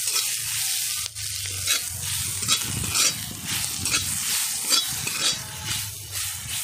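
Onions and whole spices sizzling in hot oil in a black iron wok, with a metal spatula scraping and stirring against the pan about twice a second.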